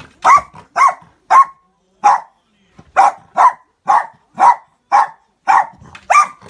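Miniature dachshund barking repeatedly in short single barks, about two a second, with a brief pause after the first four; the dog is barking at an unfamiliar object, a juice cup.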